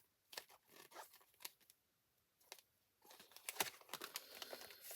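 Packaging being handled and unwrapped: soft crinkling and rustling with scattered small clicks, a brief quiet pause in the middle, then denser crinkling near the end.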